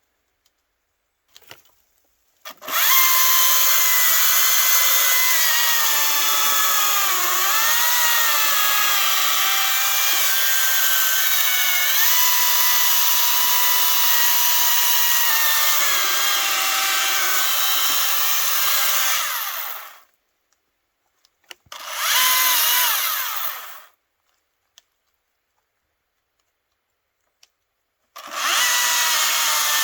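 Battery-powered chainsaw cutting into a freshly fallen tree trunk: a steady high whine whose pitch sags as the chain bogs into the wood. It runs for about seventeen seconds, stops dead with no idle, gives a short burst of about two seconds, and starts cutting again near the end.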